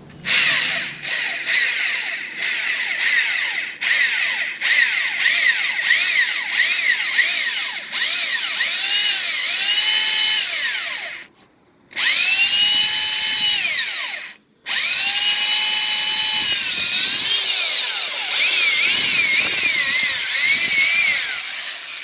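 Power drill with a long 1/4-inch bit boring a hole through a wall for the doorbell wire. It starts with short pulses of the trigger, then runs longer with the motor speed rising and falling, stopping briefly twice past the halfway mark.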